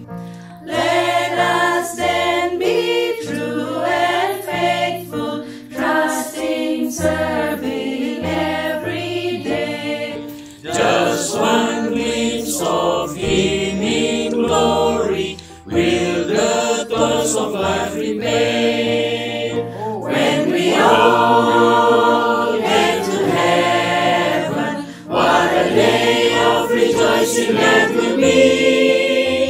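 Virtual choir of men's and women's voices singing a Christian song in several parts, phrase after phrase with short breaths between.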